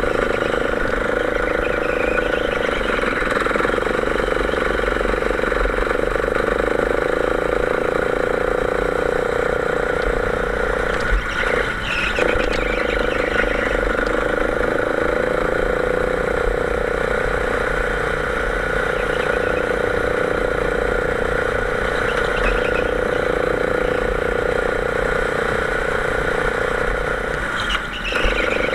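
Go-kart engine running steadily at high revs, the note dropping briefly twice: once about eleven seconds in and once near the end.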